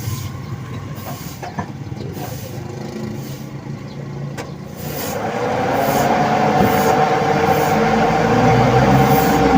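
Toyota Avanza engine cranking on the starter without catching. It comes in about five seconds in, after a quieter stretch with a few clicks, and runs on steadily. It fails to start because no fuel is reaching the injector.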